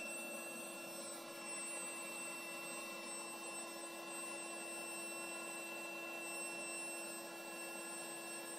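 Einhell Pressito cordless hybrid compressor running steadily, blowing air through its wide hose into a latex balloon: an even motor whine with a steady hum and high tones that does not change as the balloon fills.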